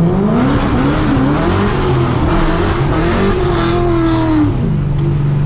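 Supercharged LS3 V8 of a Corvette C6, heard from inside the cabin, accelerating hard through second gear. The engine pitch climbs for about four seconds, with a brief dip about a second in, then falls back to a steady low note as the throttle is lifted near the end.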